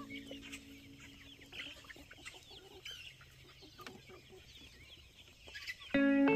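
A flock of free-ranging backyard chickens clucking and chirping in many short, soft calls. Loud music cuts in suddenly near the end.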